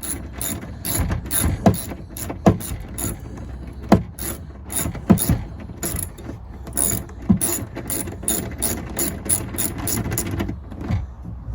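Rapid runs of ratchet-like clicking with a few louder knocks, as a Land Rover Discovery's interior door trim panel is refitted and its fasteners are driven in.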